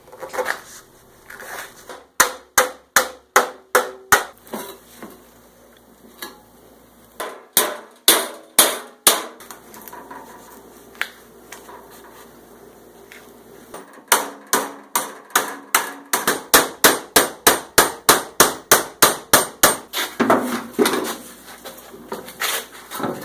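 Body hammer striking sheet steel clamped to a workbench edge to bend it over: runs of sharp metallic blows, about two to three a second, with pauses between and the longest run in the second half.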